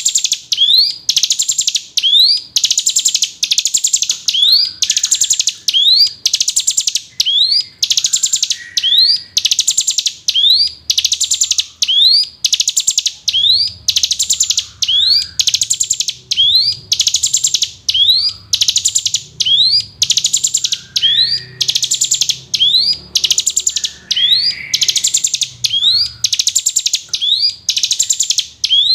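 Ciblek gunung, a prinia, calling over and over: a quick rising note followed by a dry, buzzy rattle, repeated about once a second without a break.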